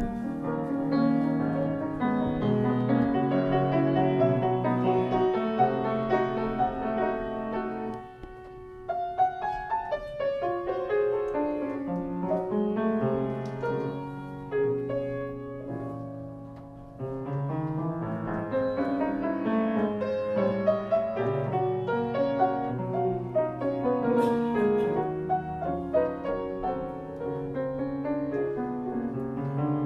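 Solo piano playing, with a brief pause about eight seconds in.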